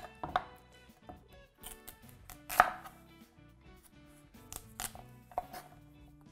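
Chef's knife cutting into a whole Hokkaido pumpkin on a wooden chopping board: a few separate knocks and crunches of the blade through the hard rind and onto the board, the loudest about two and a half seconds in.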